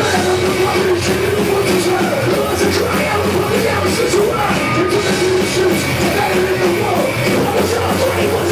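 Street punk band playing loud and live: full-band rock with drums and cymbals hit in a steady beat, and shouted vocals over it.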